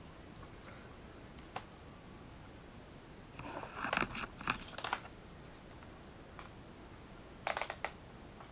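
Hands handling small objects and wires on a wooden desk: a few light clicks, a spell of clicking and knocking about three to five seconds in, and a few short, sharp hissy bursts near the end.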